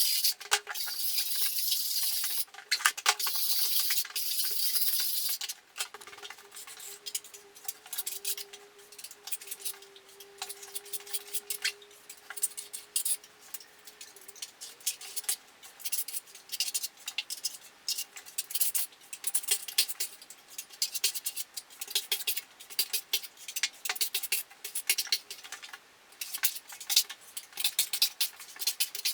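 A steel putty knife scraping and spreading wall filler across a wall. There is a continuous scraping hiss for about the first five seconds, then many short, irregular scrapes and taps of the blade.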